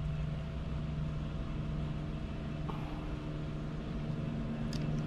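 A steady low mechanical hum from an engine or motor, holding several even tones without change. A brief faint click comes near the end.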